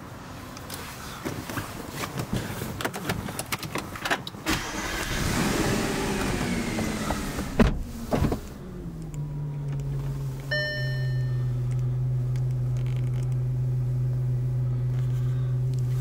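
Audi RS5's 4.2-litre V8 being started: a few clicks and knocks, then the starter and engine catching with a sharp bang of revs about halfway in, the revs falling back over a couple of seconds to a steady idle. A short electronic chime sounds from the dashboard shortly after it settles.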